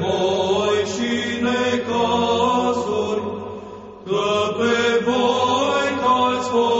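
Orthodox Byzantine chant sung by low voices over a steady low drone, in long sustained notes. One phrase fades out about three seconds in, and the next begins about a second later.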